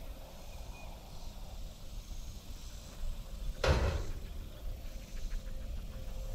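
A single sharp clank from a metal hunting feeder being worked, a little past halfway through, with a few faint ticks after it over a low steady rumble.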